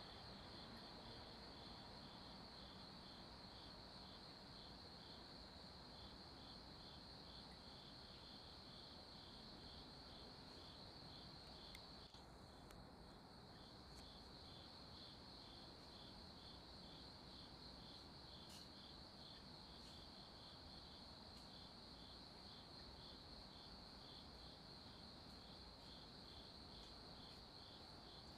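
Faint insects chirping: a steady high trill, with a second insect pulsing just below it about two or three times a second.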